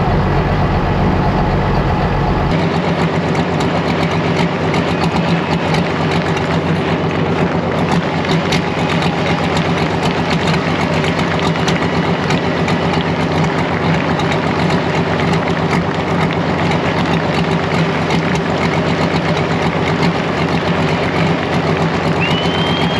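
Diesel engine of a pro stock pulling tractor running steadily at low revs as the tractor rolls slowly along the track. A brief rising whistle sounds near the end.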